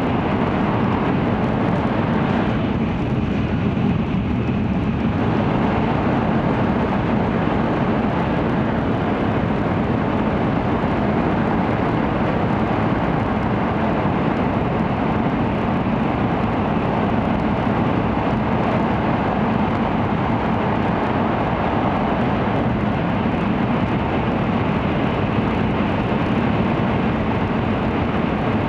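Steady rushing noise inside the passenger cabin of an N700-series Shinkansen running at high speed through a tunnel. The middle of the sound dulls briefly about three seconds in.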